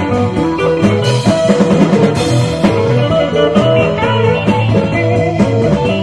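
Live rock band playing an instrumental passage without vocals: electric guitar and bass over a drum kit, with drum hits throughout.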